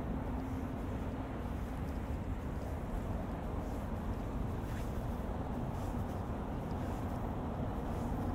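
Steady outdoor city ambience dominated by a low rumble of vehicle noise, with a faint hum in the first second or so.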